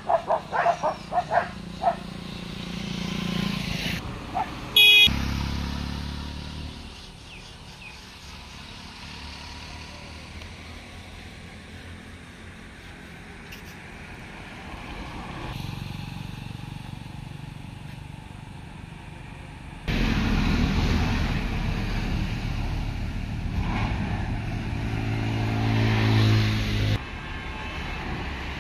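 A few dog barks at the start, then passing road traffic. A short loud high tone sounds about five seconds in, and a motor vehicle's engine rumbles loudly for several seconds from about twenty seconds in before cutting off suddenly.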